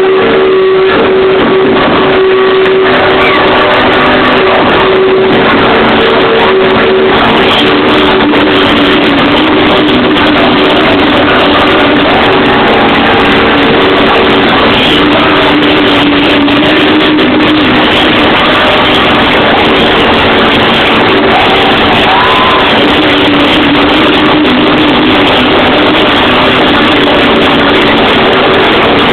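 Loud live dance music played over a concert sound system, with long held synth notes. It is recorded at close to full level and sounds overloaded and smeared.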